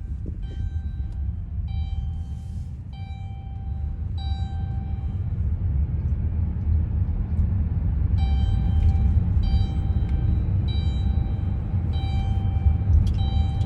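Phone notification chime sounding over and over, a pitched ding about once a second, pausing for a few seconds in the middle and then resuming. A steady low rumble runs underneath.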